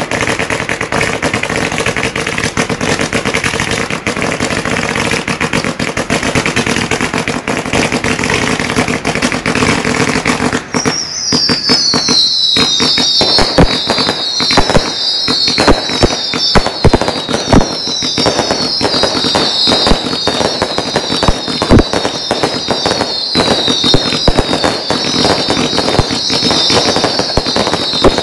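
Fireworks display: a dense, steady hiss of ground fountains shot through with crackling, then from about eleven seconds in a rapid string of short, high, falling whistles over many sharp cracks and bangs.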